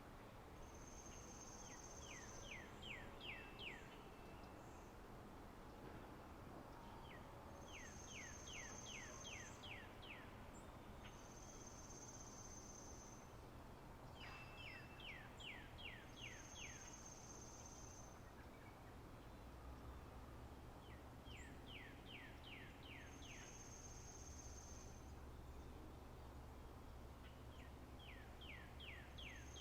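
Faint songbird singing over and over: a thin, high, held whistle and a quick run of about seven falling notes, repeated roughly every six seconds, over a faint steady low hum.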